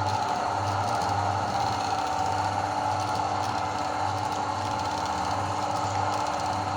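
Electric meat grinder motor running steadily, grinding, with an uneven low throb underneath.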